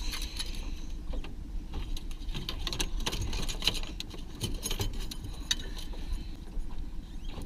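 Clicks, knocks and rattles of fishing gear being handled in an aluminium boat, densest about three to five seconds in, over a steady low rumble of the boat underway.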